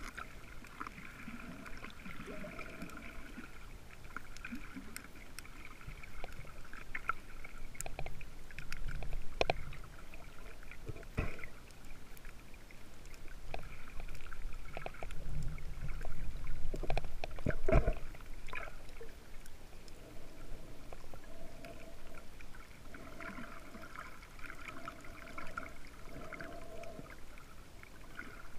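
Muffled underwater sound picked up by a camera in its waterproof housing: steady water movement with scattered sharp clicks, and a few louder knocks in the middle.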